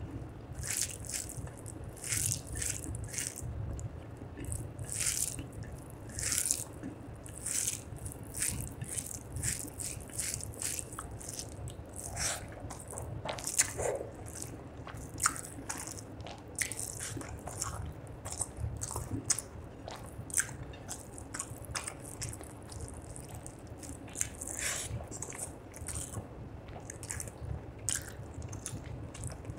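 Wet, sticky sounds of eating rice and fish curry by hand: fingers squishing rice into the gravy on the plate, then mouthfuls being chewed, heard as a stream of many short irregular clicks and smacks.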